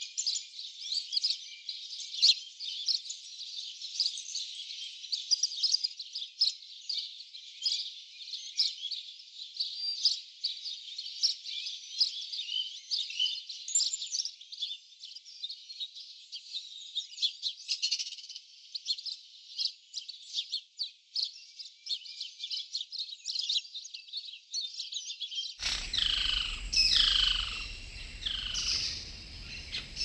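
Dense chorus of many small birds chirping and twittering rapidly at a high pitch. About 26 seconds in, the sound changes to a fuller recording: a few louder calls that slide down in pitch, over a low background noise.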